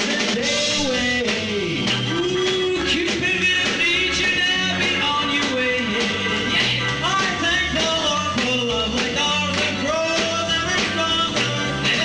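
A live show band playing rock and roll, with a man singing lead into a microphone over a steady drum beat and bass.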